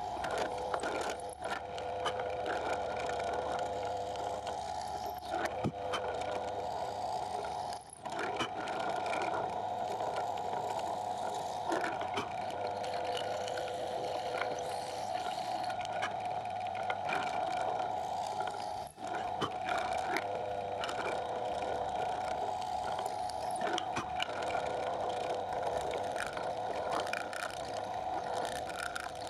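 Drill press running steadily with a constant motor hum as the twist bit bores into a small block of wood, briefly interrupted about 8 and 19 seconds in.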